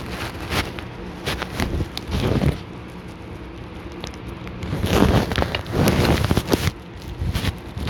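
Close rustling and crackling handling noise in irregular bursts, loudest about five to seven seconds in.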